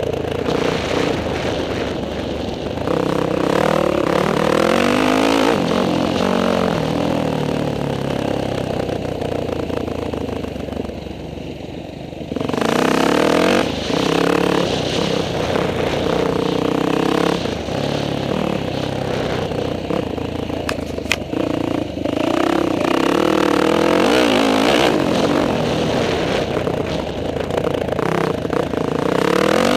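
Motocross bike engine revving hard and shifting up through the gears, heard from a helmet camera. The throttle eases off about ten seconds in, then opens hard again a couple of seconds later.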